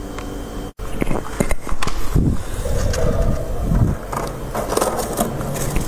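Freezer frost crunching and crackling as a hand grabs and breaks loose, snowy chunks of it, with dull knocks against the freezer compartment. A short break in the sound comes under a second in.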